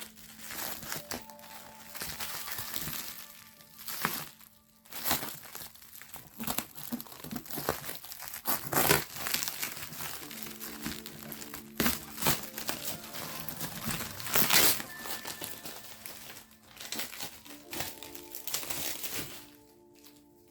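Packaging crinkling and rustling in irregular bursts as an order is unpacked, loudest about 9 and 14 seconds in, over quiet background music.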